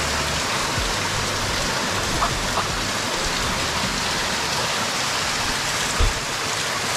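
Water cascading down wet rock close by: a steady rushing hiss. A single thump about six seconds in.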